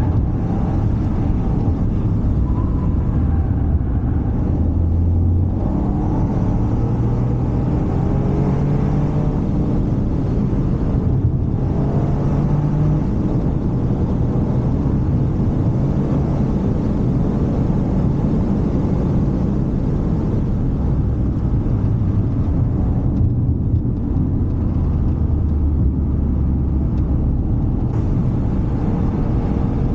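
Toyota GR Yaris's turbocharged three-cylinder engine pulling hard on the road, its note rising as it revs and dropping briefly twice at lifts or gear changes, over a steady road and tyre rumble.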